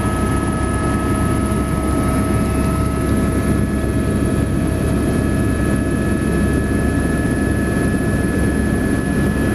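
Helicopter in flight: a steady, loud drone of engine and rotor with a few steady whining tones over it.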